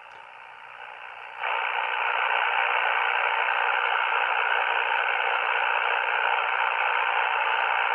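Ham radio transceiver playing hissing band noise on the 80-meter band through its speaker, with no signal coming through. About a second and a half in the hiss gets much louder and stays steady. This is the heavy noise ('junk') on 80 meters that drowns out weak stations.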